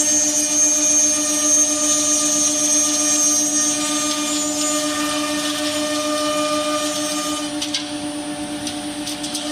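CNC nesting router running, its spindle giving a steady whine and hum over continuous machine noise, with a few sharp clicks near the end.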